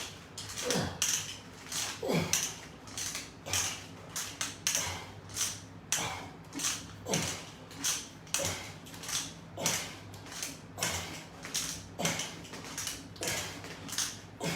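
Rhythmic clicking and clinking of resistance-band exercise hardware worked in quick repetitions, a few clicks a second, with a creak that falls in pitch every second or two.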